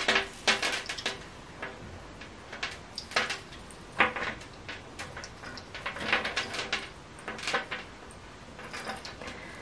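Metal necklace chains and metal hooks clinking and clicking against each other and a hanging rail as the jewellery is handled and rearranged: an irregular series of short clinks and jingles, some with a brief ring.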